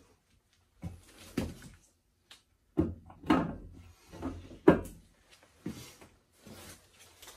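Heavy steel parts of a Roddie R8 pipe-bursting machine knocking and clanking as they are set into place in the pit: about half a dozen separate clunks, the loudest about two-thirds of the way through.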